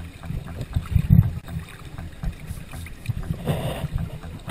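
Shallow sea water sloshing and gurgling around a camera's waterproof housing held at the waterline, with a few knocks and splashes, the loudest about a second in.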